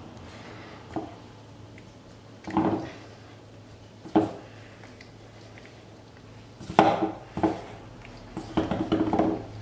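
Stainless steel mixing bowl knocked and scraped by hands lifting flour-coated chicken strips out of seasoned flour: short, irregular clunks with a slight metallic ring, about six of them, several close together near the end.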